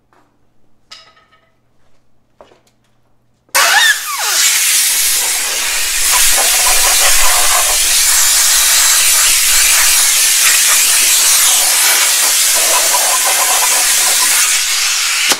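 Power tool spinning a brass wire wheel against the engine block's deck surface, scrubbing off paint overspray. It starts suddenly about three and a half seconds in with a loud, steady hissing scrub and stops abruptly near the end.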